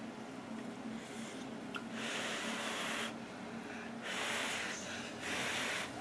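Instant ramyeon noodles being slurped from a cup, three long slurps of about a second each.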